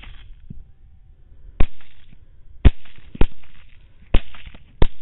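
Five rifle shots at uneven intervals, about half a second to a second apart, each a sharp crack followed by a short fading echo.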